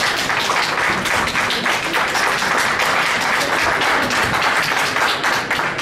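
Audience applauding: many hands clapping densely and steadily, dying down near the end.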